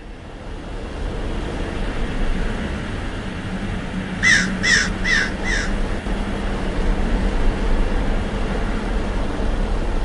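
Steady low rumbling background noise, with four short, evenly spaced calls, like a bird's, about halfway through.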